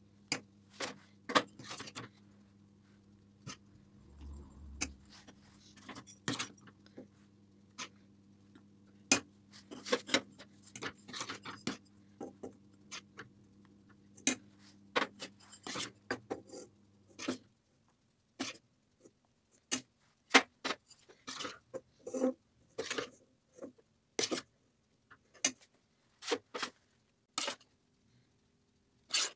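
Metal ladle clinking and scraping against a steel pot and clay bowls as hot rice pudding is ladled into terracotta bowls, with scattered sharp knocks of the bowls being handled and set down on a tray. A low steady hum underneath cuts off about two-thirds of the way through.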